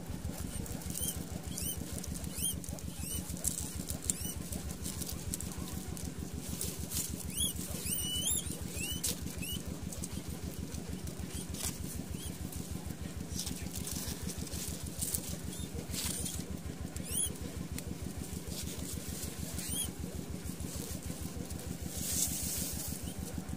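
Guinea pigs giving short, high-pitched squeaks, scattered and repeated, most in the first half. Under them a small engine runs steadily with a fast low throb.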